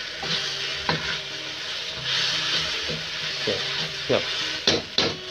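Kueh teow (flat rice noodles) sizzling in a hot wok while a metal ladle stirs and scrapes through them. Sharp clanks of the ladle against the wok come about a second in and again several times in quick succession near the end.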